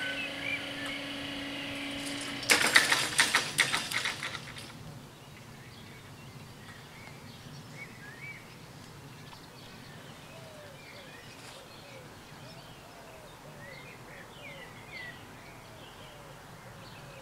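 Level-crossing barrier drive humming steadily as the booms lower, cut off about two and a half seconds in by a loud, rapid rattling clatter lasting about two seconds as the barrier arms come down onto their rests. Afterwards, birds chirp faintly.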